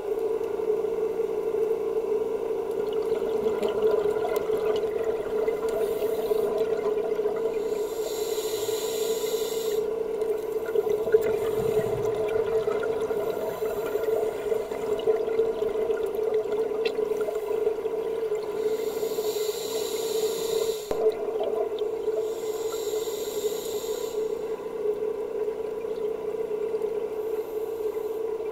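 Underwater sound picked up through a camera housing: a steady muffled hum, with a scuba regulator's exhaust bubbles rushing past three times.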